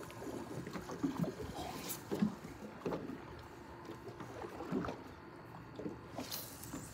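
Small waves lapping against the hull of a drifting boat: soft, irregular slaps of water.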